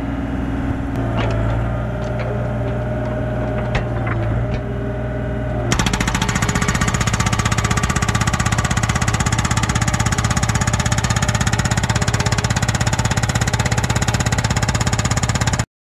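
Yanmar B37 mini excavator running for the first several seconds while the hydraulic hammer is set on the rock. About six seconds in, the hydraulic hammer starts pounding the rock with rapid, even blows, which stop abruptly near the end.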